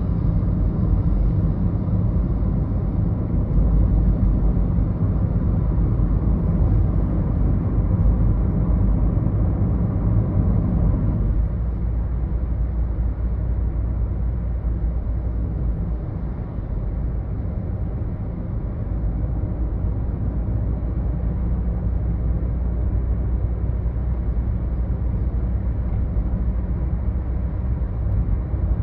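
Road noise heard from inside a moving car on a highway: a steady low rumble of tyres and engine that eases a little about eleven seconds in.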